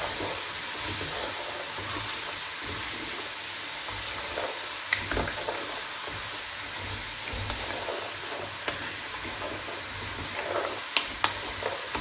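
Diced carrots and vegetables frying with a steady sizzle in a metal pot while a wooden spatula stirs them, scraping and knocking lightly against the pot. Two sharp clicks near the end.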